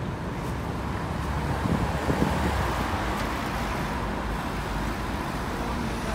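BMW M2 driving past and pulling away through city traffic, its engine over steady road noise and swelling about two seconds in.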